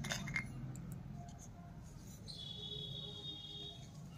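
Light clicks of miniature steel toy utensils being handled, with a thin, high squeak lasting about a second and a half in the middle.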